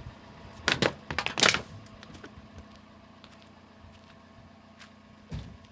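A quick cluster of knocks and rustling about a second in and a single knock near the end, over a faint steady hum.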